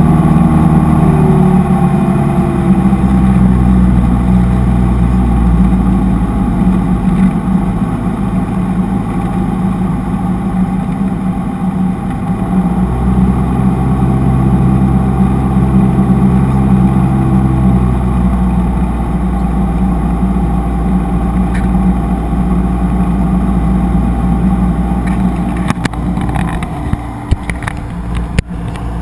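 Single-engine Cessna's piston engine and propeller running steadily in cruise flight, a loud drone whose pitch shifts a little a couple of times. A few sharp clicks near the end.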